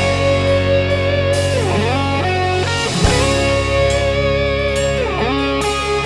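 Instrumental music led by electric guitar with bent, held notes over a steady bass line; the chord and bass change about halfway through.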